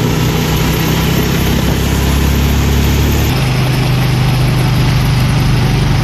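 A vehicle's engine running steadily under road and wind noise, heard from on board while the vehicle moves; the low engine note changes about halfway through.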